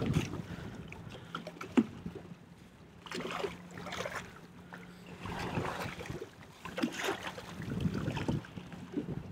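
Water lapping and sloshing against the hull of a small fishing boat in irregular swells, with wind on the microphone and a faint steady hum underneath.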